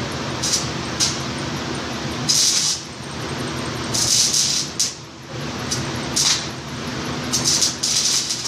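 Stick (shielded metal arc) welding arc crackling and sizzling, with uneven surges of hiss as the electrode burns against the steel, over a steady low hum.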